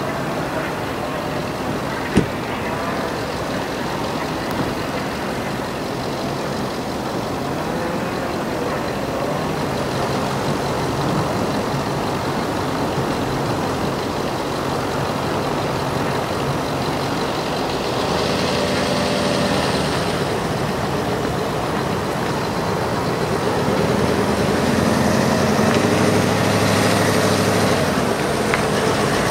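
Audi SQ7's V8 engine running as the SUV crawls along a muddy field track, its note swelling a couple of times and getting louder as it comes closer. A single sharp click about two seconds in.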